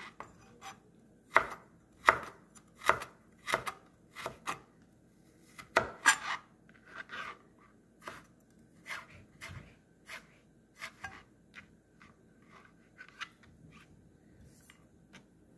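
Knife chopping food on a cutting board in a run of sharp, irregular strokes, about one or two a second. The strokes are louder in the first half and lighter toward the end.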